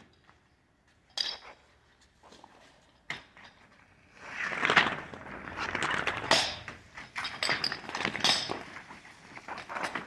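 Rolled fire hoses thrown and unrolling across paving stones, the flat hose slapping and scraping on the ground and its metal couplings striking the stones. Single knocks about one and three seconds in, then a dense run of knocks and scraping from about four seconds on as several hoses unroll in quick succession.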